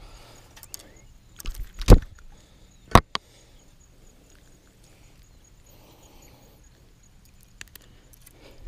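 Close handling noise: a few sharp knocks and thuds about two seconds in and one more at three seconds, as a freshly landed bass and the fishing rod are handled, then quiet with light rustling and a few faint clicks.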